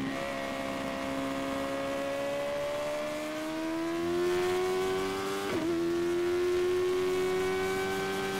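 Sports motorcycle engine running hard on a race track, its note climbing slowly as it pulls through a gear, with a brief break in the note about halfway through.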